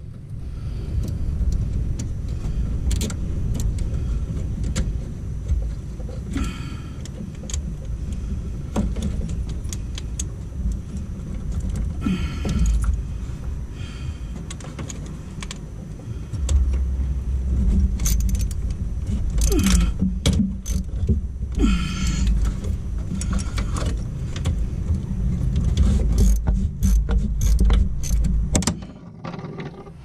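Irregular metallic clinks, rattles and knocks from hands and tools working in a bus's under-dash wiring, over a steady low rumble.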